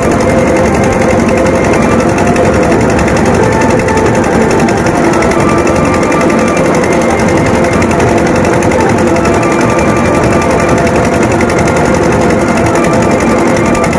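Loud, fast drumming with a rapid rolling beat that keeps on without a break, over the din of a large crowd.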